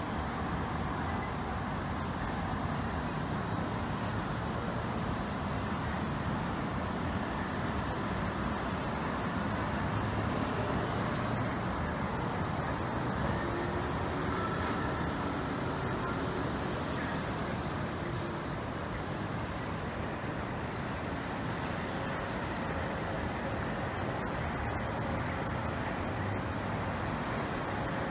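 Steady city street traffic noise: cars and trucks running by on a busy road, with a few brief faint high squeaks in the middle and near the end.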